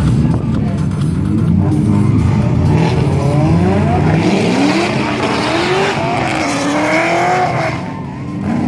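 Drift car's engine revving hard in repeated rising sweeps while its tyres squeal and smoke through a slide; the revs and tyre noise die away near the end.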